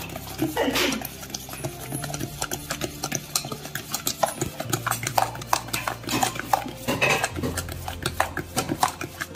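A utensil beating cake batter by hand in a bowl, clicking against the bowl's sides in a quick, uneven rhythm.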